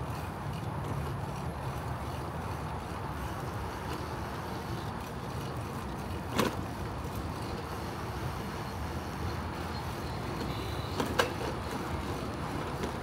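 Steady rolling noise of a bicycle riding along an asphalt path, with wind rumbling on the microphone, broken twice by a short sharp click or knock, once about six seconds in and once near the end.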